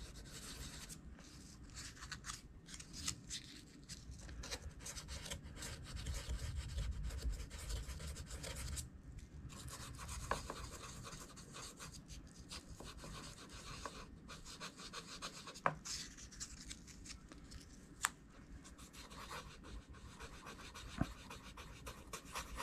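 Faint, irregular scratching and rubbing of 320-grit sandpaper on brass rivets in a leather knife sheath, taking off years of oxidation; a few sharp clicks in the second half.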